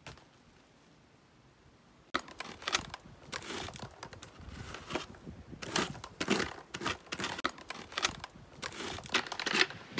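Near silence, then from about two seconds in an irregular run of scraping, tearing and crackling as moss, dirt and spruce twigs are cleared from a dirty new boulder.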